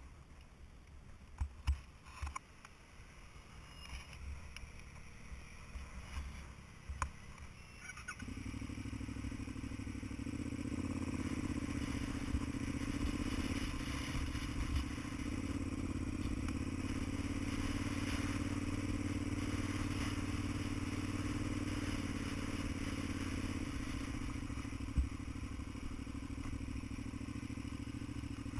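Faint scattered clicks and knocks, then about eight seconds in a vehicle engine comes in suddenly and runs steadily, growing a little louder over the next several seconds.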